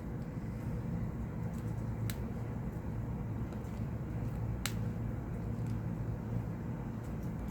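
A few small, sharp clicks of a prying tool working at the volume-button flex inside a Samsung Galaxy A8 phone, the two clearest about two and four and a half seconds in, over a steady low hum.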